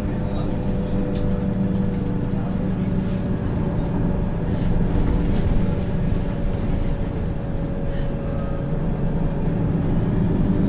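MAN Lions City Euro 6 city bus running steadily under way, its engine a low steady drone with a steady whine from the drivetrain above it.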